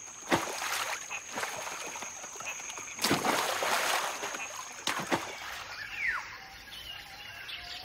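Macaques leaping into a river and swimming: a few splashes, the longest about three seconds in. Near the end, forest sound with a bird's falling whistle and small chirps.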